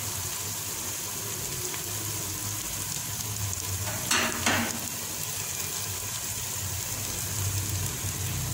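Eggplant and tomato sauce sizzling steadily in a pot on the stove, with a brief louder scrape about four seconds in.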